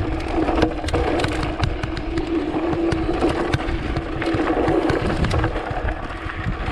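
Mountain bike descending fast over rough dirt and rock: tyres crunching, the frame and parts clattering with many sharp knocks, and wind rumbling on the microphone, over a steady buzzing tone.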